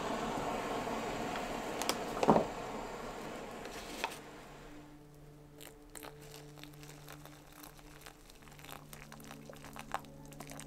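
A steady hiss that stops about four seconds in, with a loud knock a little after two seconds. Then the crinkling and rustling of a foil freeze-dried meal pouch as hot water is poured into it from a pot, with faint low sustained music tones underneath.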